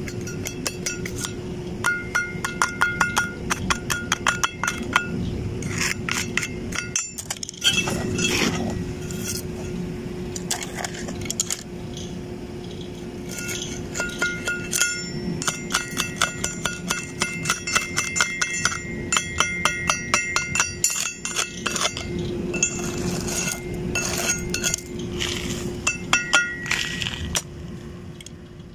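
Slag being chipped off a fresh stick-weld bead on a steel pipe-to-flange joint: a steel rod taps rapidly against the weld in runs of quick metallic clinks, and the steel rings with each run. A steady hum runs underneath.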